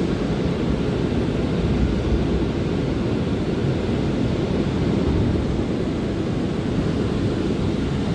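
Steady low rumble of an R179 subway car running on the rails as it pulls into the station, heard from inside the car.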